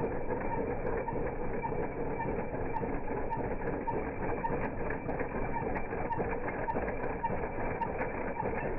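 ProGARDEN Campo U14e walk-behind tractor's petrol engine running steadily while it drives a double-action sickle-bar mower, whose two knives clatter back and forth in a fast, even rhythm.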